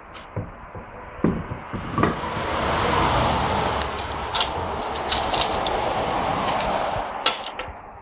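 Metal clunks as an alloy road wheel is fitted back onto the hub, then several seconds of a steady rushing noise that swells and fades, with small metallic clicks through it.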